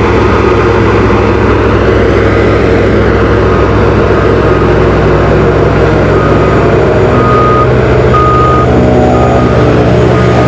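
Diesel engines of an asphalt paver and a small road roller running steadily at close range. About two-thirds of the way through a second engine's drone joins in, and a reversing alarm beeps about once a second over the last few seconds.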